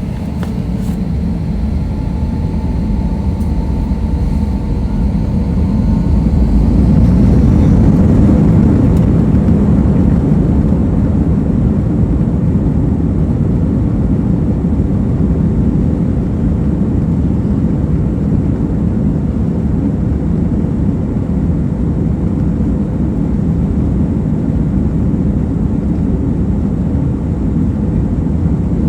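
Airliner's engines during takeoff: a heavy, noisy rumble that builds over the first several seconds to its loudest, then holds steady and strong, with a faint whine early on.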